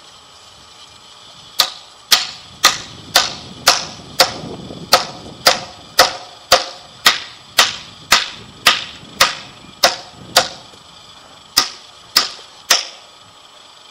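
Hammer blows ringing on a galvanised steel fence stay bracket as it is fixed to a timber post: about twenty sharp strikes at roughly two a second, with a short pause before the last three.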